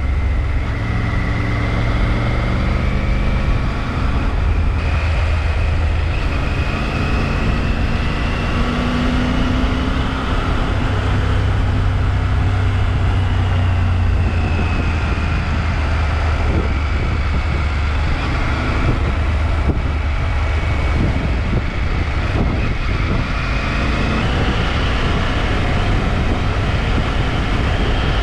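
Motorcycle engine running steadily under way at about 60–70 km/h, its pitch drifting slowly up and down as the speed changes, with wind rushing over the microphone.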